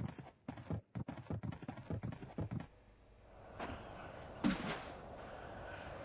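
A quick run of light tapping clicks, about five a second, for the first two and a half seconds. Then a steady faint hiss with a couple of soft rustles.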